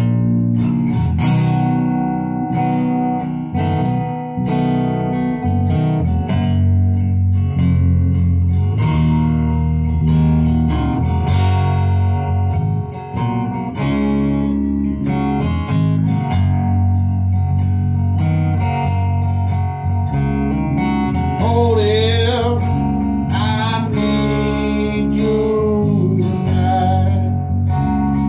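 Electric bass and strummed guitar playing a song in G together. A wavering, pitch-bending melody line comes in about three-quarters of the way through.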